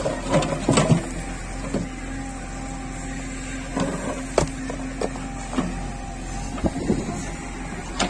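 JCB 3DX backhoe loader at work: its four-cylinder diesel engine running steadily under hydraulic load, with a faint wavering whine midway through. The digging bucket knocks and scrapes against soil and concrete rubble, with a cluster of knocks in the first second, a sharp one about four and a half seconds in, and more near the end.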